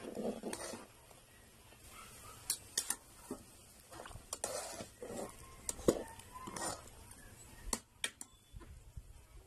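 A metal spatula stirring soup in an aluminium pot, with irregular clinks and scrapes against the pot's sides.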